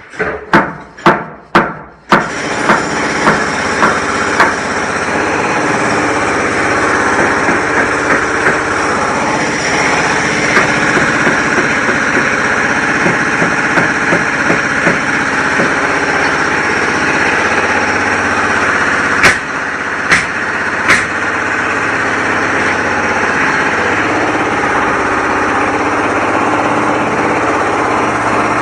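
Construction-site noise: a quick run of about five loud bangs at the start, then a machine engine running steadily with scattered knocks and clanks, and three more loud bangs about two-thirds of the way through.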